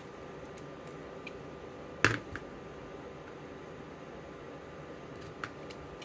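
Handling of a steel digital caliper and a plastic magazine: one sharp click or knock about two seconds in, with a few faint clicks around it, over a steady faint hum.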